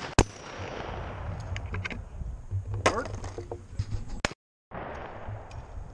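A shotgun fires once just after the start, with a sharp click a moment before the shot. A short call sounds about three seconds in, and the sound cuts out briefly a little after that.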